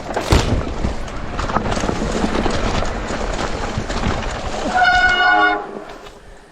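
Electric mountain bike riding up a rough, rocky trail: a steady rumble and rattle of tyres and frame over the ground. About five seconds in there is a brief held tone, and then the noise drops away.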